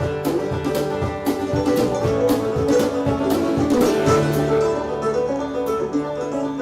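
Bluegrass band playing: quick plucked-string picking over a steady bass line.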